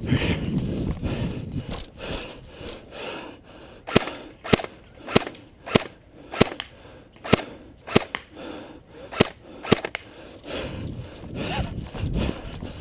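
Airsoft pistol firing about nine single shots in a quick string, roughly one every half second or so, each a sharp crack.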